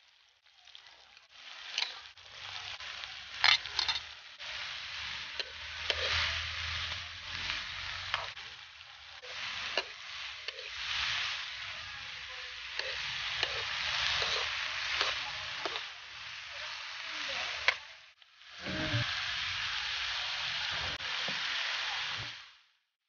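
Sliced bitter melon sizzling in hot oil in a wok as it is stir-fried, with a metal spatula scraping and clacking against the pan now and then. The sizzle dips briefly, resumes, and cuts off sharply near the end.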